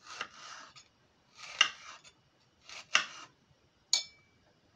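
Kitchen knife slicing through peeled apple on a wooden cutting board: three crisp cutting strokes, each ending in a knock of the blade on the board. Near the end comes a single sharp click with a short ringing tone.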